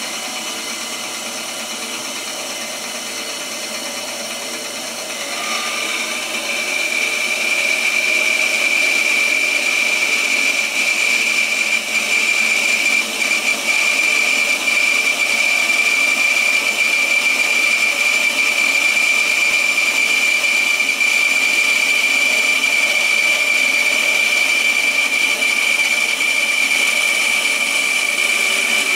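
A 10-inch benchtop bandsaw running, then resawing a block of persimmon wood. From about six seconds in, the blade is in the cut and the sound grows louder, with a steady high whine.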